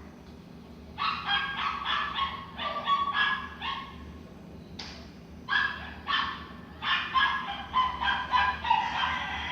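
Animal calls: two runs of short, quick, high cries following one another rapidly, with a pause of about a second and a half between the runs.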